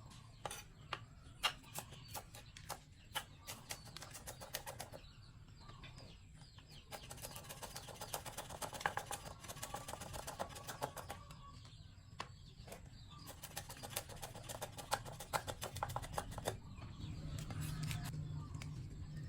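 Knife chopping ingredients on a cutting board in irregular runs of quick strokes, with a bird calling in the background.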